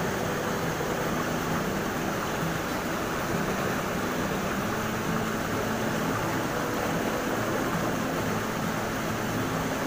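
Shallow river water rushing and swirling steadily around rocks.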